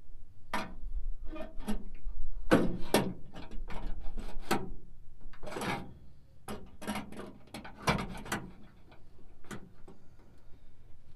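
PVC pipe being worked into bent metal pipe clamps: a string of irregular clicks, knocks and short scrapes of plastic against metal.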